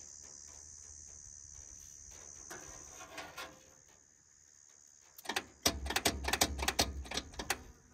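Starter motor on a Holden six-cylinder engine trying to crank: about five seconds in, a two-second run of loud, irregular clacks and clunks with a low hum underneath, and the engine does not start. The owner suspects the starter is cooked. A steady high hiss runs beforehand.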